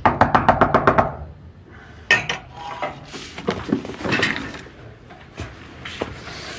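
A fast run of about nine sharp raps in the first second, someone knocking hard at the apartment door. After it come scattered clinks and knocks as a wine glass is set down on a glass desktop and the office chair moves.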